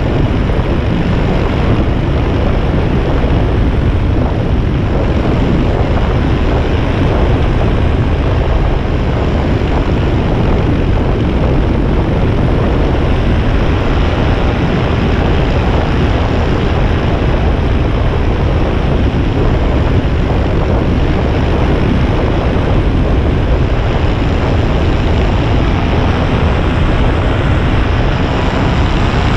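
Paramotor engine and propeller running steadily in flight, mixed with heavy wind rush on the microphone.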